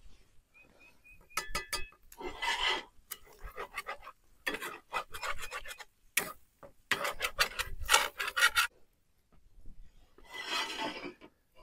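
Metal spatula scraping and stirring food in a skillet over a campfire, in about six rasping spells of strokes.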